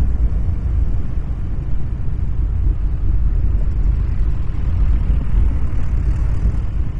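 Wind buffeting the microphone: a loud, steady, low rumble with no clear tone.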